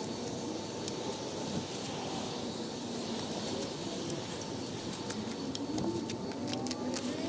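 Steady road-traffic noise with a vehicle's engine note gliding up and down, and a run of sharp crackles near the end.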